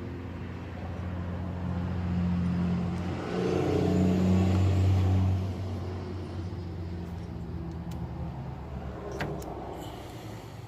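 A motor vehicle's engine running, growing louder to a peak about halfway through and then fading away, with a couple of short clicks near the end.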